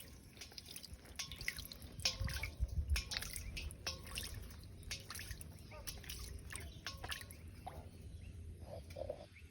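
Light, irregular drips and small splashes of water as a duckling swims and dabbles.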